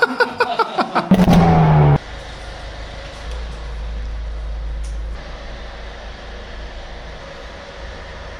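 A short burst of gliding, pitched tones and a held tone, like an edited music sting, cut off sharply about two seconds in, followed by a steady low rumble.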